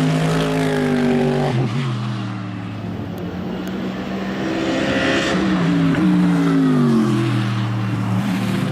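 Mercedes-AMG GT3 race car's naturally aspirated V8 at full racing speed, its engine note climbing, dropping sharply about a second and a half in, then climbing and falling again with gear changes and throttle.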